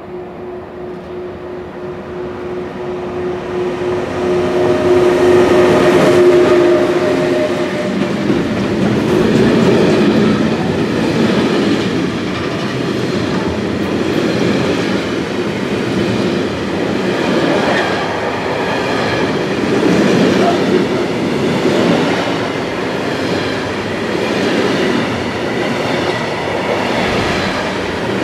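An electric locomotive approaches and passes with a steady hum, growing louder over the first six seconds. Then a long intermodal freight train of pocket wagons carrying truck trailers and tank containers rolls past at speed, its wheels clattering and rumbling.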